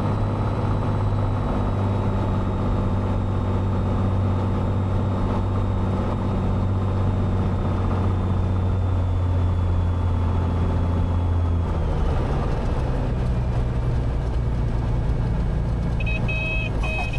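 Cessna 182's piston engine and propeller droning steadily in the cabin through the final approach and flare. About twelve seconds in, the drone drops and falls in pitch as power comes back for touchdown and rollout. A brief high-pitched beeping comes in near the end.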